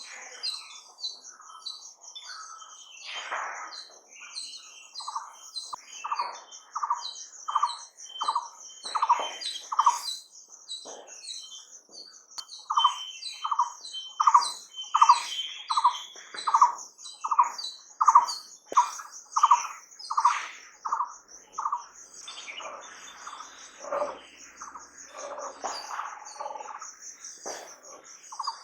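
Birds calling: a long run of evenly repeated mid-pitched notes, about two a second, over a continuous high, fast-pulsing trill. The repeated notes pause for a few seconds near the end.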